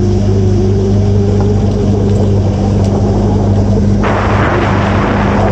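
Outboard motor of a small boat running steadily with a low, even drone. About four seconds in, a rushing noise of wind or water joins in.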